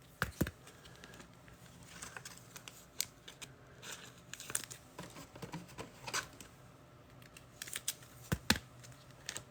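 Trading cards and pack wrappers being handled at close range: scattered light clicks and taps with short bursts of rustling and crinkling.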